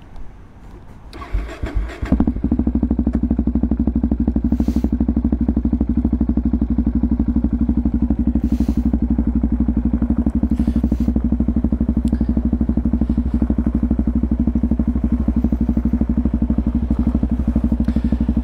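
Yamaha MT-03's 660 cc single-cylinder engine starting about two seconds in, then running steadily with an even, rapid pulse and no change in pitch.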